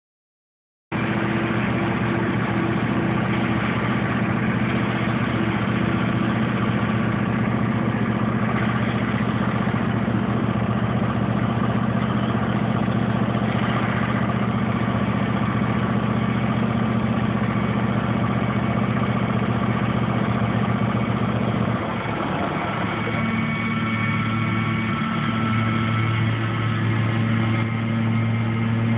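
Exmark Lazer Z zero-turn mower's engine running steadily while mowing. About two-thirds of the way through the engine note changes pitch and drops slightly in level.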